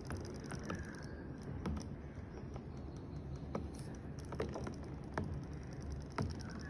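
Battery-powered robotic toy fish flicking its tail in a plastic tub of water: irregular light clicks and taps, with a thin high buzz from its small motor at the start and again near the end.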